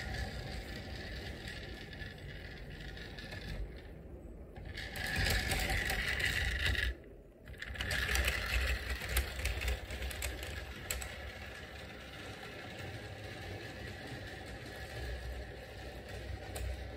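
Lima CRICK clockwork toy locomotive's mostly plastic spring motor whirring as it runs around the track pulling its cars, struggling with the load. The whirring drops away briefly twice, around four and seven seconds in.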